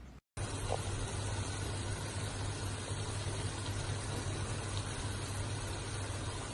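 Callaloo steaming down in a pot, giving a steady hiss over a low hum that starts abruptly just after the start.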